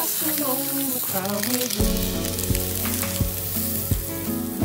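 Thick marbled beef steak sizzling on a wire grill over charcoal, under background music. A bass line and a steady beat come into the music about two seconds in.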